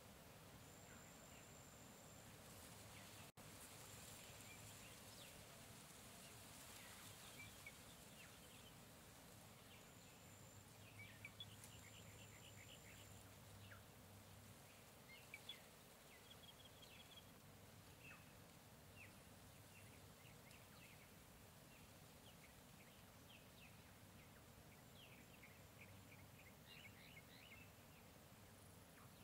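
Faint tropical jungle ambience: scattered short bird chirps over a steady hiss, with a thin high tone that comes and goes in stretches of about a second. The sound drops out for an instant about three seconds in.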